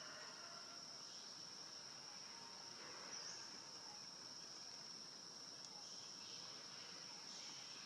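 Faint, steady high-pitched insect chorus, a continuous cricket-like trill.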